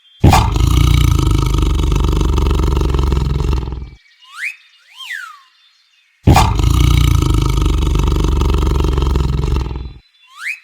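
Tiger roaring twice, each roar about four seconds long, and each followed by a couple of short high whistle-like calls that rise and fall in pitch.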